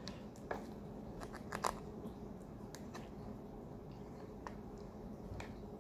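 Faint, scattered crinkles and clicks of a small plastic jam packet being pinched and pulled at to tear it open, over a low steady hum.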